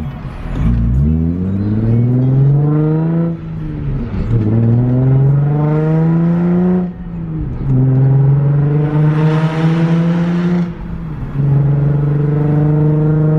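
Nissan 350Z's VQ35DE V6 accelerating through the gears: the engine note climbs, drops at an upshift about three seconds in and again about seven seconds in, then holds steady at cruising speed with a brief dip near the end.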